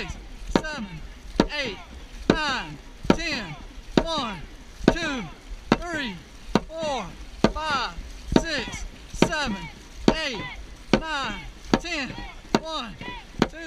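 Dragon boat crew paddling in unison: a sharp knock on every stroke, a little more than one a second, each followed by a short splash and swish of the paddles through the water.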